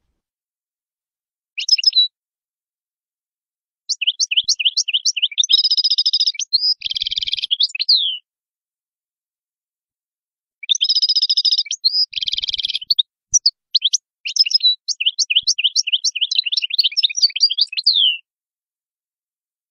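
European goldfinch singing: phrases of rapid, high twittering chirps broken by a few buzzy notes. A short burst comes about two seconds in, then a phrase of about four seconds, and after a pause a longer phrase of about seven seconds.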